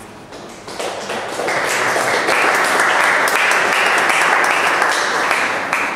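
Audience applauding, starting about a second in, quickly growing to a full, steady clapping and stopping near the end.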